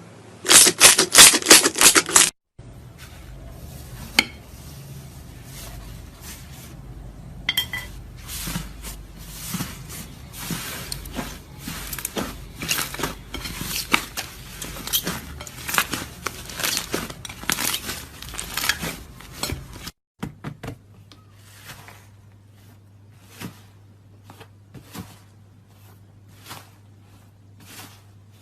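Crunchy slime being squeezed and pressed, giving dense crackling clicks and pops. The clicking breaks off at hard cuts about two seconds in and about twenty seconds in, and is quieter and sparser in the last part.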